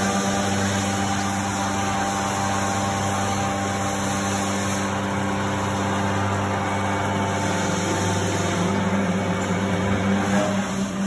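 Huron LU8 CNC travelling-column bed mill running with a steady machine hum made of several held tones over a hiss. A few of the higher tones drop out near the end.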